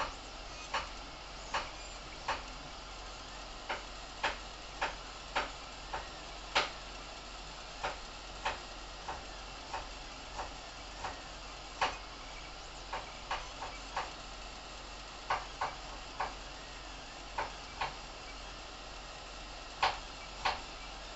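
Creality Ender 3 3D printer at work: a steady whir of its motors and fans, with short clicks at irregular spacing, about one to two a second, as the print head moves.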